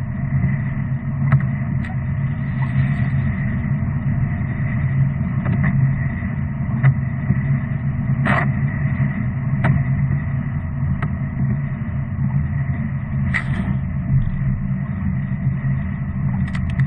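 Car cabin noise while driving on a wet road: a steady low rumble of engine and tyres, with a few short sharp knocks scattered through.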